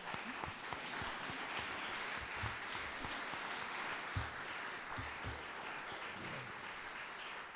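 Audience applauding: many hands clapping in a steady spatter, with a few low thumps mixed in.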